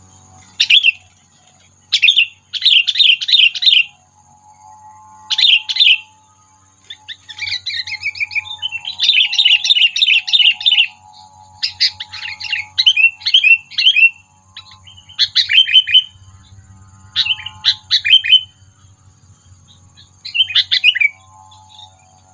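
Sooty-headed bulbul (kutilang) calling: loud bursts of quick, chattering whistled notes repeated again and again, with a longer, faster run about nine to eleven seconds in. A faint steady high whine sits underneath.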